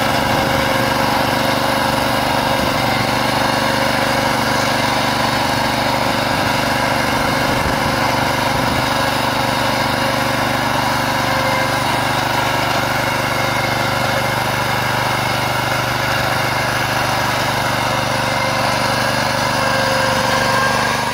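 Pasquali two-wheel tractor's small engine running steadily under load, driving its rotary plough through the soil.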